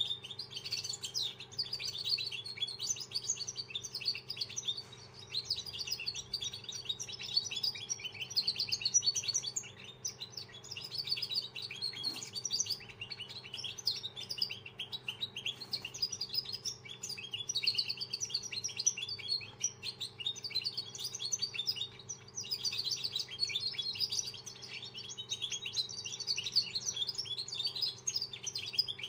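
A young caged song finch, a two-month-old novice still in song training, singing a continuous fast twittering song with a few short breaks. A steady faint low hum runs underneath.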